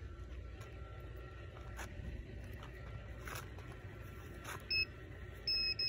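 Metal detector sounding short, high, steady beeps near the end, one brief and then a longer one, signalling a metal target under the search coil. Before that there is only a low rumble with a few faint clicks.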